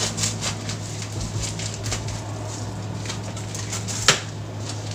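Scissors snipping through a plastic parcel mailer, a quick run of small cuts and crinkles, sparser later, then one sharp click about four seconds in, over a low steady hum.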